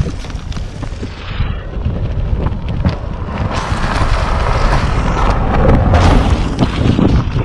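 Wind buffeting the handlebar camera's microphone as a road bike rolls along a gravel road. Its 30 mm tyres crunch and rattle over the loose surface, and the whole grows louder after a few seconds.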